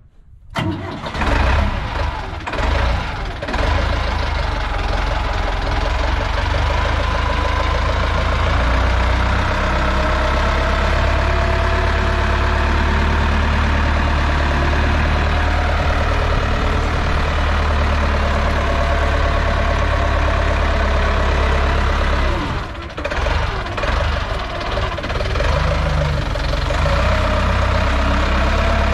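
Diesel engine of a Desta 3-tonne off-road forklift running as the forklift drives. Its loudness is uneven for the first few seconds, then it holds a steady low drone, with a brief drop in engine note about 23 seconds in before it picks up again.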